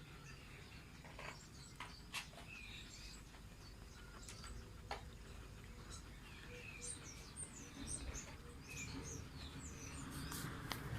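Faint bird chirping in short, scattered high calls, with a few light clicks.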